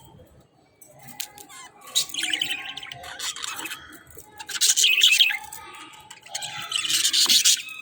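A group of budgerigars chattering and squawking in overlapping bursts. The calls start about a second in and come in waves, the loudest about halfway through and again near the end.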